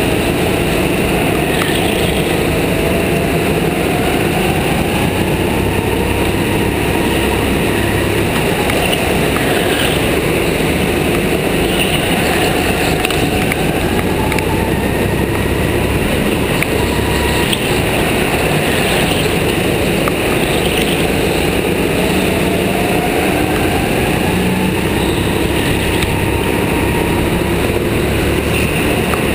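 Go-kart engine running hard through laps of a track, its pitch rising and falling in slow sweeps as the kart accelerates out of corners and lifts off for the next.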